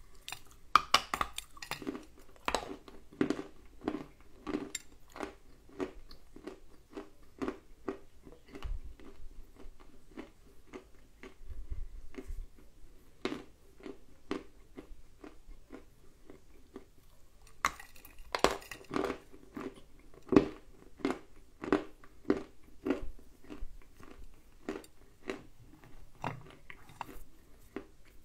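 Dry lumps of edible clay being bitten and chewed close to the microphone: a run of crisp, short crunches, with a denser cluster of crunches about 18 seconds in.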